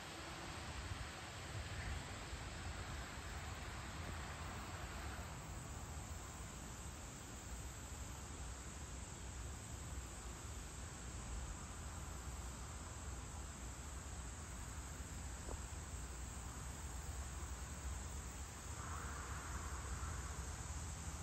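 Steady chorus of summer insects, a continuous high-pitched drone, over a low rumble. A softer buzzing swells briefly a couple of seconds in and again near the end.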